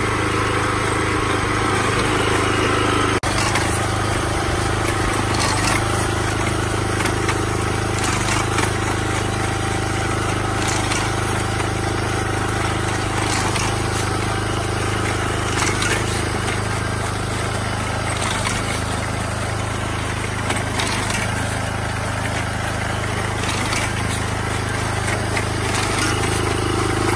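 Small engine of a walk-behind rice reaper running at a steady speed as it cuts standing rice.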